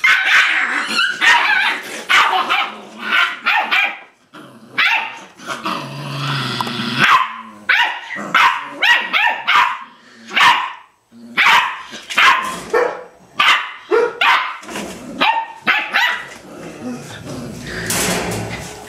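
Eight-week-old Rottweiler puppies play-fighting, giving a rapid string of short, sharp barks and yips mixed with growls, with a couple of brief lulls partway through.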